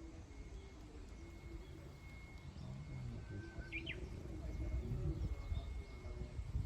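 Wild birds calling, with one quick, sharp upward chirp about halfway through, over a low outdoor rumble that grows louder near the end.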